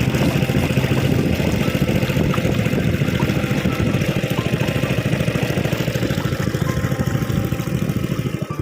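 Inboard engine of a small wooden country boat running steadily under way, with a fast, even low firing beat. Near the end it drops a little in loudness, as if throttled back.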